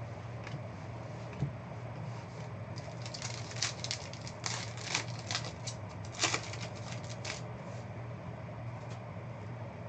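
Foil trading-card pack wrapper crinkling and cards being handled: a run of sharp crackles and rustles through the middle few seconds, over a steady low hum.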